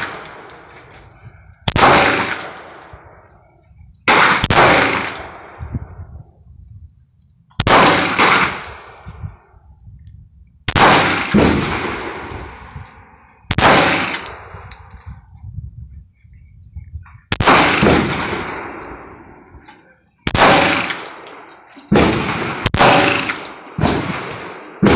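Single pistol shots, about ten, spaced a few seconds apart and coming quicker near the end. Each crack has a long echoing tail under the range's roof.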